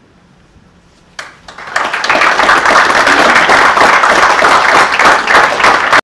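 Audience applauding: a single clap a little over a second in, then many hands join into full applause that cuts off suddenly at the end.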